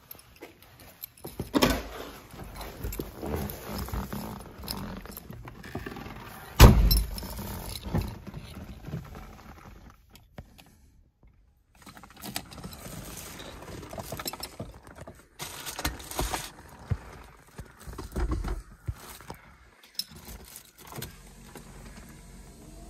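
Someone getting into a 1988 Porsche 911 Turbo: rustling and knocks, with the car door shutting in a heavy thump about seven seconds in. Later, keys jingle and click at the ignition.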